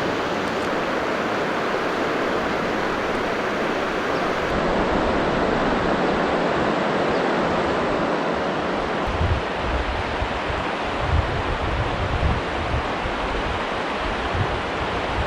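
River water rushing steadily, with wind gusting on the microphone from about nine seconds in.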